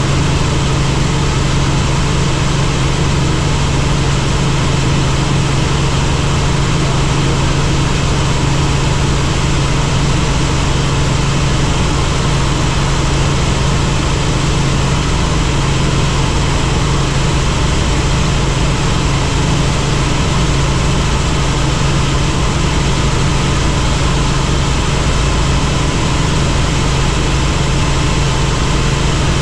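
Helicopter in flight: a steady rotor and engine drone with a strong low hum, unchanging in level throughout.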